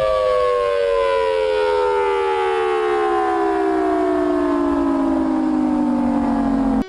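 Civil defence siren winding down: a chord of several tones sliding steadily lower in pitch, then cut off abruptly right at the end.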